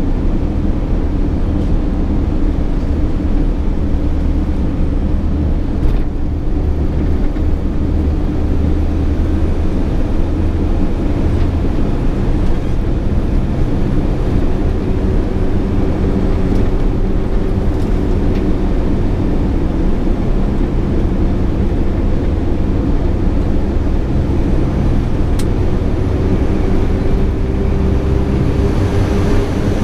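SANY 6x4 dump truck's diesel engine running under way, heard from inside the cab together with road and tyre noise as a steady low drone. The engine note rises slightly near the end.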